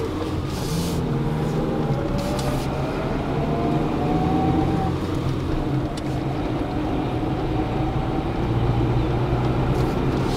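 Car engine and road noise heard from inside the cabin while driving, a steady low hum with the engine note rising partway through.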